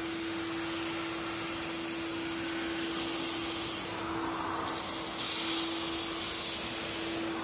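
Vacuum cleaner running steadily with a constant hum, its floor nozzle drawn over a rough concrete stair step from about four seconds in, which adds a louder rushing hiss that swells and eases.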